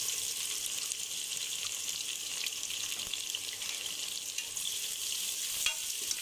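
Freshly added sliced onions sizzling in hot oil, a steady hiss, with one faint knock near the end.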